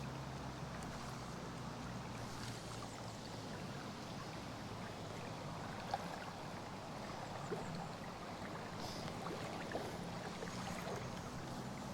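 River water running in a steady rush, with a few faint ticks over it.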